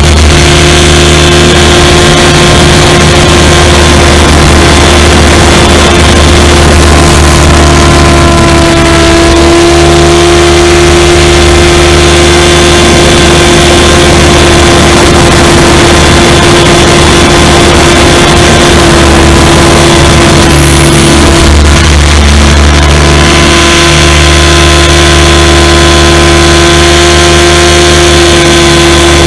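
SAB Goblin 500 electric RC helicopter running, heard loud and close through a camera mounted on it: a steady whine from the motor and drive gears over rotor and wind noise, its pitch shifting slightly now and then.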